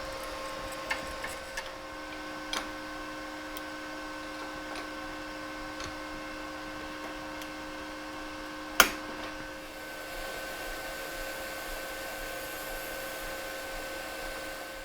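A steady machine hum made of several steady tones, with a few light clicks in the first few seconds and one sharp knock about nine seconds in.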